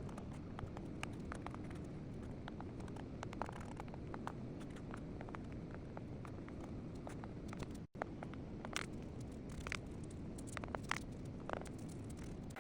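Irregular light clicks and taps of a stylus on an iPad's glass screen over a steady hiss. The sound cuts out for an instant about two-thirds of the way through.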